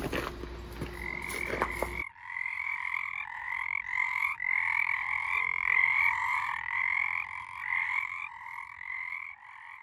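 A few knocks over a low hum, then, from about two seconds in, frogs croaking in quick repeated calls, about two a second, growing fainter near the end.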